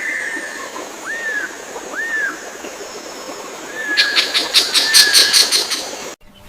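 Birds calling: three short arched whistles about a second apart, then a louder, rapid dry chattering run of about seven notes a second beginning about four seconds in, over a faint steady outdoor hiss. It cuts off abruptly near the end.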